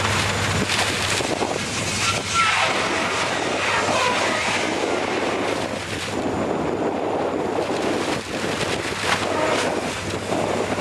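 Ice-class cargo ship Norilskiy Nickel pushing through sea ice: a steady rushing, scraping noise of ice against the hull, with wind on the microphone.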